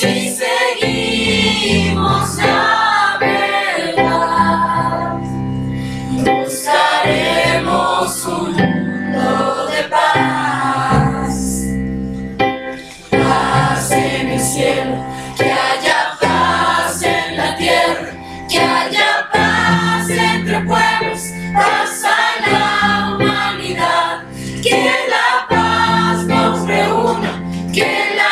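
Mixed choir of teenage boys and girls singing together, accompanied by an electronic keyboard holding low chords that change every couple of seconds.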